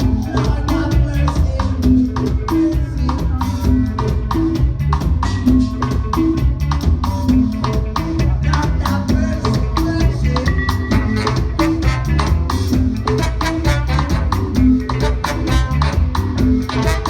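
A live band playing an upbeat instrumental passage: a drum kit keeps a fast, steady beat over a repeating bass line, with other instruments on top.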